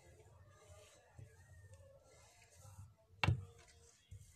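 Faint soft rubbing and light taps of a wooden rolling pin rolling out bread dough on a tabletop, with one sharp knock about three seconds in.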